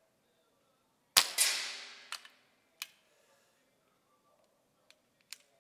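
A single shot from a BSA R10 Gold Star SE .177 pre-charged pneumatic air rifle about a second in: a sharp crack with a hiss that dies away over about a second. A few short sharp clicks follow.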